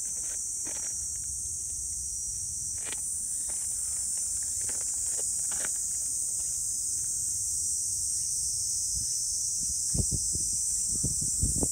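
A steady, high-pitched shrilling of insects, with a few soft low thumps near the end.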